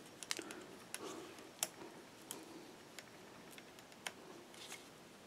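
Faint, scattered metal clicks, roughly a second apart, as a Pedro's 3-point chain checker is hooked into a bicycle chain's links and pressed against the chain.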